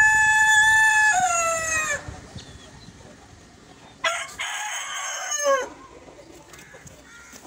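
A rooster crowing twice: the first crow is already sounding, holds a long steady note, drops in pitch about a second in and ends about two seconds in; a second crow of about a second and a half comes about four seconds in and falls away at its end.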